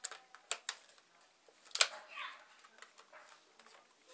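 Sharp plastic clicks and clacks of an airsoft gun being handled, a handful of separate knocks with the loudest a little under two seconds in.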